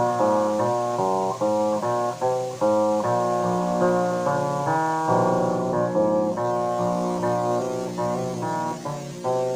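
Background music: a melody of plucked notes on a string instrument, one note after another, each dying away.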